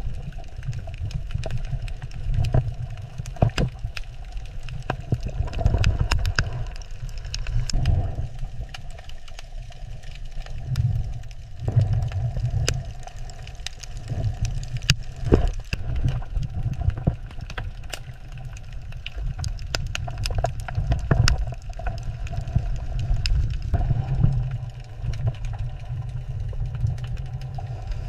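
Underwater ambience: a low, uneven rumble with scattered sharp clicks and crackles.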